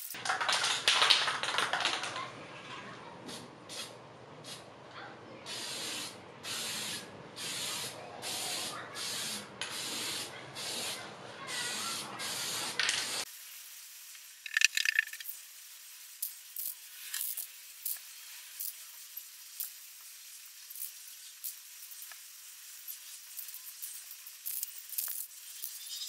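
Aerosol can of clear lacquer spraying. A long hiss at first, then a run of about a dozen short, evenly spaced bursts, then sparser, quieter bursts.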